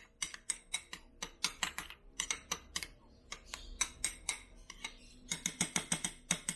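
Metal spoon stirring a thick mayonnaise dipping sauce in a small glass bowl, clicking rapidly against the glass at about five or six strokes a second. The clicks ease off briefly around the middle, then come quick and dense again near the end.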